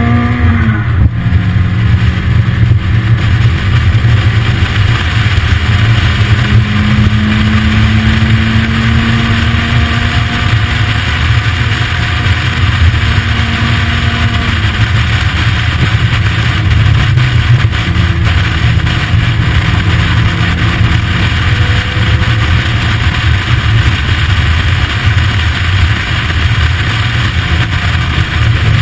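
Lotus Elise engine pulling steadily uphill, heard from the open cockpit under a heavy rush of wind and road noise. Its note climbs slowly and falls away briefly about a second in and again about 14 seconds in, then carries on at a lower pitch.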